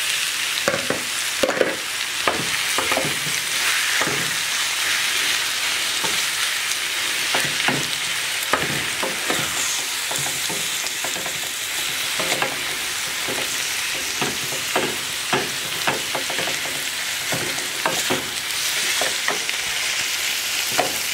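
Diced chicken breast and chopped onions sizzling in a hot frying pan, with a wooden spatula stirring and knocking against the pan in many short strokes.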